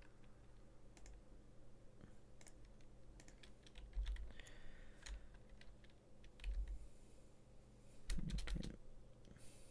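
Typing on a computer keyboard: faint, scattered key clicks, with a few dull thumps in between.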